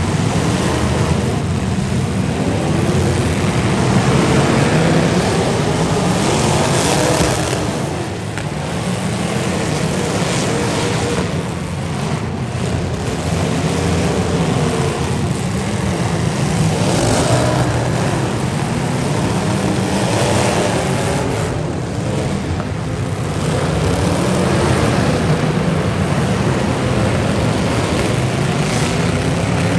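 Demolition derby car engines running hard together, their pitch rising and falling as they rev over a continuous loud rumble.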